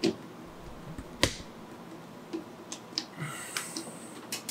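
Sharp metallic clicks and a brief scrape as a screwdriver works a fitting loose from a ceiling-mounted track-light rail; the loudest click comes about a second in, followed by several smaller ticks.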